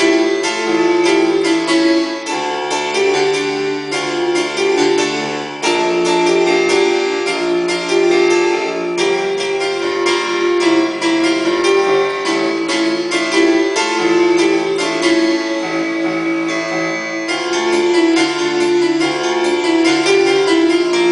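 Portable electronic keyboard played with both hands in a piano voice: a busy run of quick melody notes over steadily held lower notes. There is a brief dip about five seconds in.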